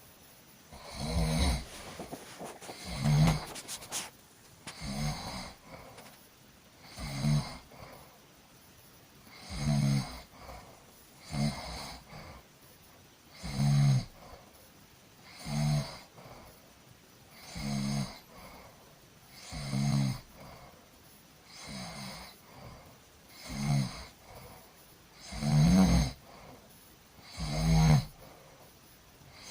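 A sleeping person snoring in a steady rhythm, about one snore every two seconds, each swelling and fading, with quiet breaths between.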